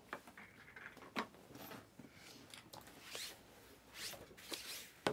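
Faint, scattered rustling and scraping handling noises, with a short zip-like sweep about three seconds in and a sharp click near the end.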